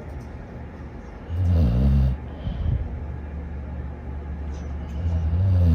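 A sleeping dog snoring: two loud, low snores, one about a second and a half in and one near the end, with quieter breathing between them.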